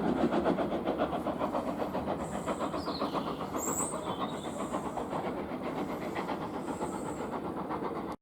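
Steam locomotive working, with a fast, even beat of exhaust chuffs that slowly grows fainter as it draws away.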